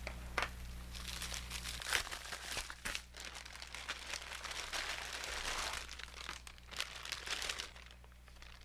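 Packaging being handled and opened by hand: crinkling and rustling with small tearing sounds and clicks, dying down near the end.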